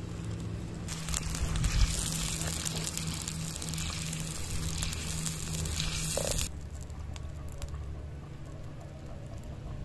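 Crackling, hissing noise of cooking over a fire, which stops abruptly about six and a half seconds in. A low steady hum sits underneath.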